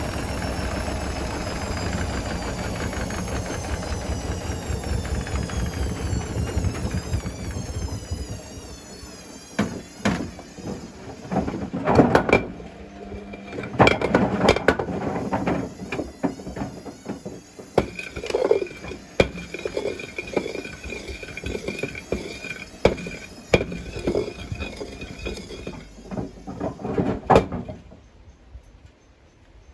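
Hotpoint Smart Tech WMFUG742 washing machine's drum slowing down, its motor whine falling in pitch over a steady rumble. Then bricks and a concrete patio block tumble in the drum with loud, irregular bangs and clunks, heavy enough that the owner fears the block will smash the door glass. The banging stops shortly before the end.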